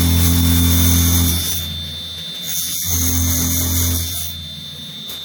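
Drilling machine boring holes in a wooden column: a steady motor hum with a high whine and cutting hiss in two spells, the first ending about a second and a half in and the second lasting about a second in the middle.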